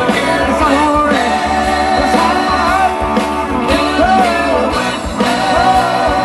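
A rock band playing live, with a steady drum beat under a wavering sung or lead line.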